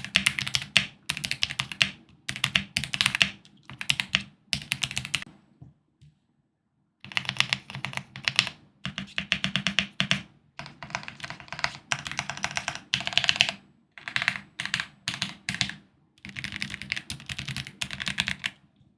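Typing on a GMK87 mechanical keyboard fitted with Curry linear switches and PBT keycaps. The keystrokes come in rapid bursts of a second or two, with short breaks and a longer pause about six seconds in.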